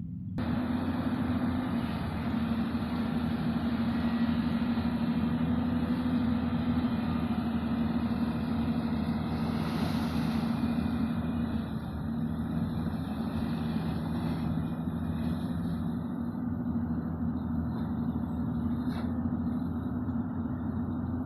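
Diesel engine of a heavy earthmoving machine running steadily, starting abruptly just after the start, with a brief rise about ten seconds in.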